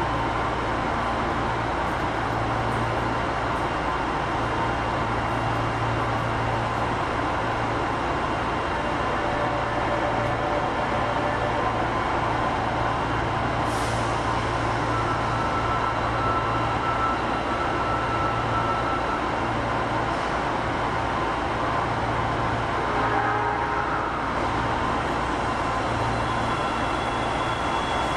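Osaka Metro 25 series subway train standing at the platform before departure, its onboard equipment giving a steady hum. There is a brief click about halfway through.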